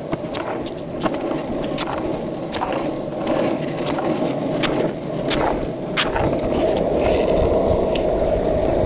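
Longboard wheels rolling fast on asphalt down a steep paved hill: a steady rumble with sharp ticks every half second or so. About six seconds in a deeper rumble joins as the board picks up speed.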